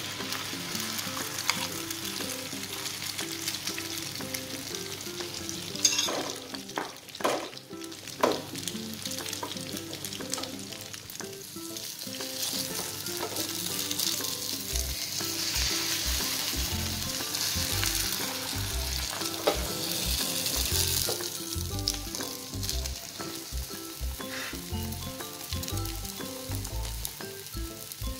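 Egg omelette batter sizzling steadily as it fries in hot oil in a frying pan, with a few sharp knocks a few seconds in.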